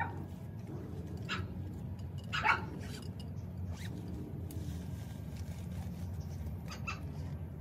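A few short rustles and zip-like scrapes from a fishing gear bag being opened and rummaged through, the loudest about two and a half seconds in, over a steady low rumble.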